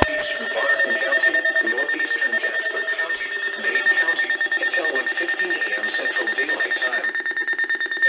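Weather radio receivers sounding their alert alarm for a severe thunderstorm warning: a rapid beeping over a steady high tone.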